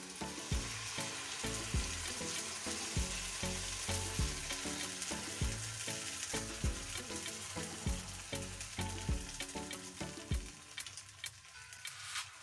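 Tomato mixture sizzling as it hits a hot pan of fried spring onions and is stirred in, the sizzle dying down about ten seconds in. Background music with a steady beat underneath.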